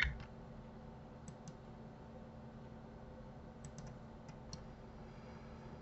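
A few faint, sharp clicks of a computer mouse and keyboard, a pair about a second in and a small cluster around four seconds in, over a faint steady hum.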